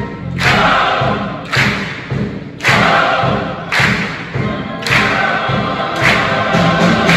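Large choir singing with instrumental accompaniment, a heavy accented beat striking about once a second.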